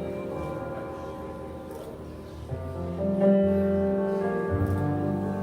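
Soft background worship music on keyboard: held chords over a bass, changing chord about three seconds in.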